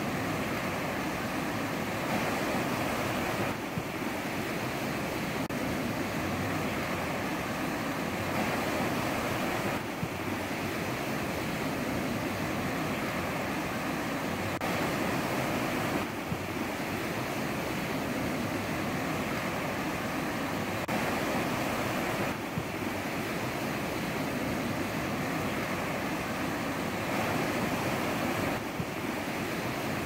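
Ocean surf washing onto a shore in a continuous, even rush of waves. The texture of the sound shifts abruptly every few seconds.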